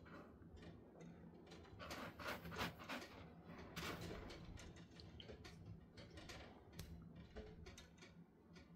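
A cat scratching and shifting its paws in a litter box, the litter grains making a string of short, soft scrapes and clicks, loudest about two to four seconds in.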